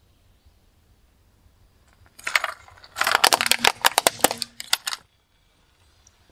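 Plastic toy police car cracking and snapping as a car tyre rolls over and crushes it: a short crackle about two seconds in, then a dense run of sharp cracks and snaps for about two seconds that stops abruptly.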